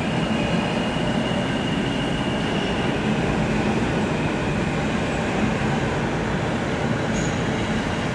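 Kawasaki R211 subway train approaching through the tunnel: a steady rumble of wheels on rail, with a faint high wheel squeal in the first few seconds.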